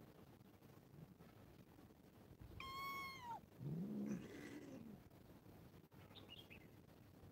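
Cats meowing: a short, high-pitched meow about two and a half seconds in, dipping at its end, followed at once by a lower, longer meow that rises and falls.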